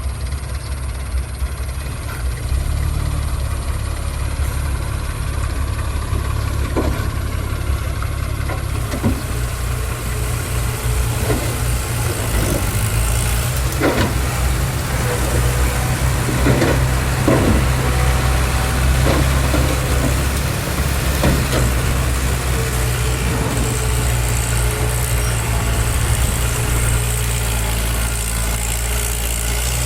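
Diesel engines of heavy construction machinery running steadily with a deep rumble, with a series of short knocks and clanks in the middle stretch.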